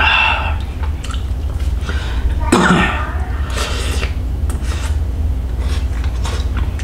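A man eating stewed meat off small bones: mouth sounds of sucking and chewing, with small clicks of a utensil against the bowl and a louder mouth burst about two and a half seconds in, over a steady low hum.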